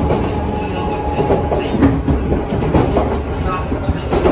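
Izukyu 2100 series resistance-control electric train running, heard from inside a car: steady wheel-on-rail rumble with clicks over the rail joints, and a louder cluster of clicks near the end.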